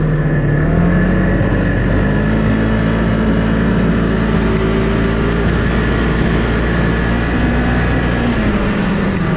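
Snowmobile engine running under throttle as the sled picks up speed, heard from the rider's seat; its note rises over the first couple of seconds, holds steady, and eases briefly near the end, with a constant rush of wind and track noise underneath.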